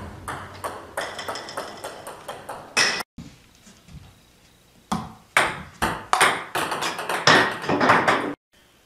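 Table-tennis balls hit with paddles and bouncing on the table: quick runs of sharp, light clicks. The clicking pauses about three seconds in, starts again about five seconds in and stops shortly before the end.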